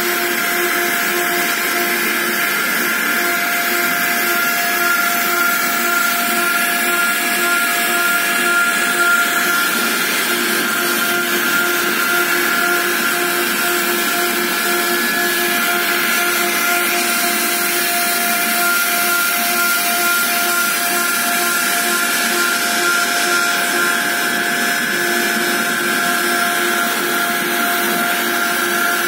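CNC die-engraving machine running, its spindle giving a steady whine over a hiss as it mills and engraves a metal die.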